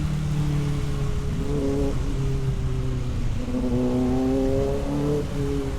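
A vehicle engine running on the road, its pitch shifting up and down several times as the throttle and gears change, over a steady rumble of wind and road noise.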